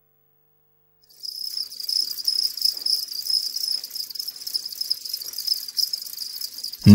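Crickets chirping in a steady high-pitched trill, starting about a second in. A loud low sound cuts in at the very end.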